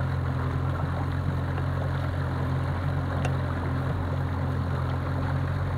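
Outboard motor running steadily at low trolling speed, a constant low hum, with a faint tick about three seconds in.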